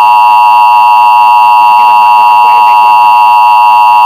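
Emergency Alert System attention signal: a loud, steady alarm tone held without a break, the alert that comes before a broadcast warning message.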